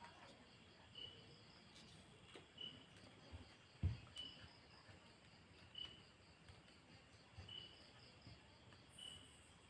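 Faint insects chirping, a short high chirp about every second and a half over a soft continuous trill, with a few low knocks, the loudest about four seconds in.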